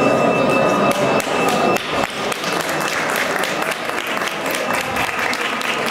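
Audience breaking into applause about two seconds in, a dense spread of hand claps, after a steady murmur with faint held tones.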